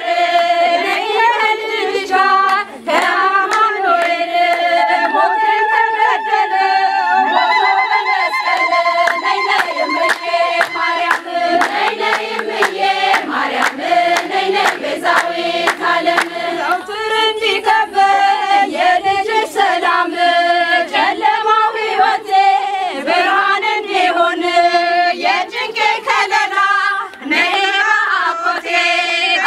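A group of women singing an Ethiopian Orthodox hymn in unison, clapping in time. A high wavering voice holds above the group for a few seconds in the middle.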